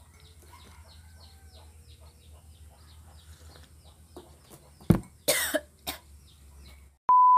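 A sudden knock, then a short cough and a click, over a faint low hum and faint high chirps repeating a few times a second. A loud, steady, high-pitched electronic beep starts near the end.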